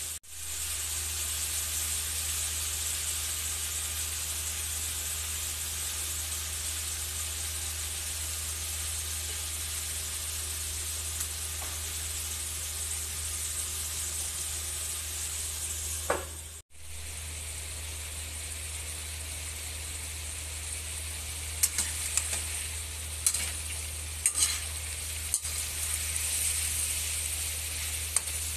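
Chicken pieces with tomatoes and onions sizzling in a wok, a steady frying hiss as they sauté. In the last quarter a spatula scrapes and clicks against the pan as the chicken is stirred.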